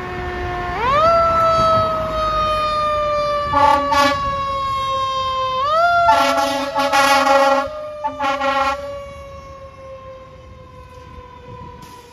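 Fire engine siren wailing: its pitch winds up sharply twice and then slides slowly down each time. Several loud horn blasts cut in over it through the middle, and the siren fades as the engine moves off.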